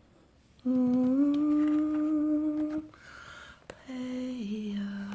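A woman humming two long held notes: the first rises slightly, the second steps down in pitch partway through.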